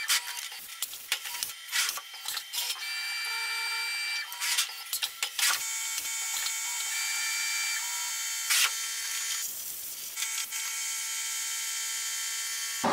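Tormach 1100MX CNC mill running a drilling and reaming cycle in a titanium handle slab. It gives a steady whine that settles at a few different pitches, broken by frequent short clicks and knocks.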